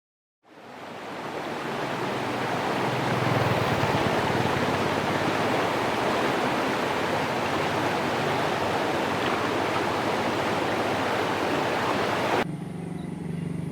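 Steady rushing noise, like running water or wind, fading in over about two seconds and cutting off suddenly near the end, leaving a quieter low hum.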